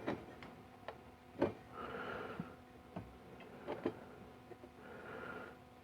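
Light metallic clicks and taps of a fuel-injector rail's parts being handled and worked apart by hand, a handful of separate knocks with the sharpest about a second and a half in. A faint steady hum runs underneath.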